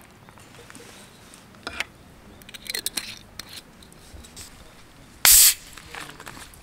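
Whisky is poured over ice in a plastic cup with a few small clicks. About five seconds in, the seal on a bottle of strongly carbonated water is twisted open and releases a short, sharp hiss of gas, the loudest sound here.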